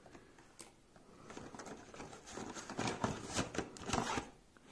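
Cardboard box rustling and a plastic Hot Wheels curve track piece scraping against it as the piece is slid out, a run of small irregular scrapes and clicks starting about a second in.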